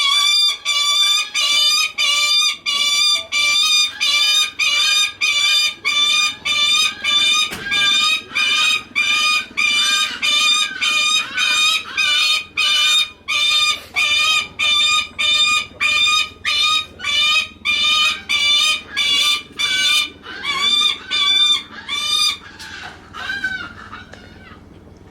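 Lanner falcon calling over and over, about two short, high, ringing calls a second, the calls growing softer and more spaced out near the end. The bird is calling to solicit attention from its keeper.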